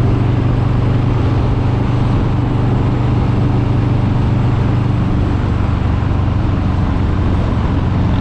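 Harley-Davidson Street Bob 114's Milwaukee-Eight 114 V-twin engine and exhaust running at steady revs, with no revving up or down.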